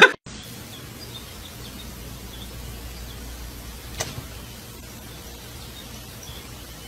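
Faint sound of a nature video playing from a laptop: a steady hiss with a few faint high chirps. One short, sharp tap comes about four seconds in, as the cat paws at the laptop.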